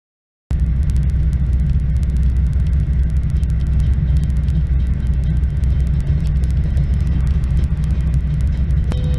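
Road noise inside a car driving on a wet highway: a steady low rumble of engine and tyres, with rapid light ticks of rain hitting the windshield. It starts suddenly about half a second in.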